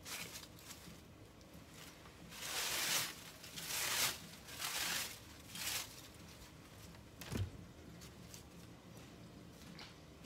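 Scraping and rustling handling noises of a garden hose being pulled out and handled, in four short bursts, then one dull thump about seven seconds in.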